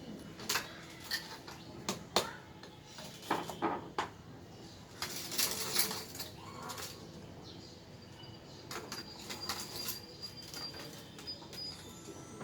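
Hard plastic clicks and clatter of uPVC pipes and fittings being handled and pushed together, with a longer scraping rustle about five seconds in.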